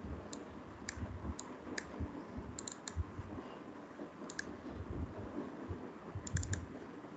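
Computer mouse clicking, single clicks and quick runs of two or three, spread irregularly over a steady low background hiss.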